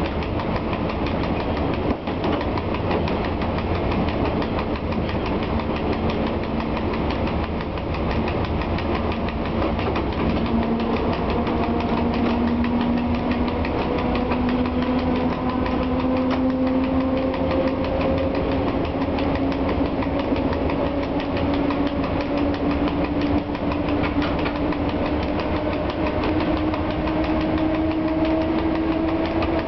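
Cab of a PKP ET22 electric locomotive under way from a start: the traction motors and gearing give a whine that climbs slowly in pitch as the train gains speed, over a steady rumble and clatter of wheels on the rails.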